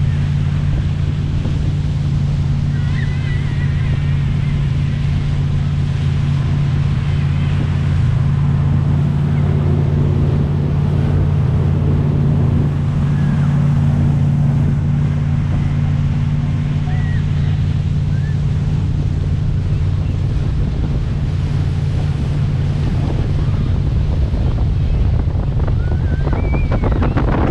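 Motorboat engine running at a steady speed under way, a constant low hum, with water rushing and wind buffeting the microphone.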